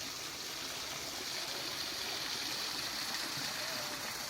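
Steady, even rushing noise of running water, with faint distant voices.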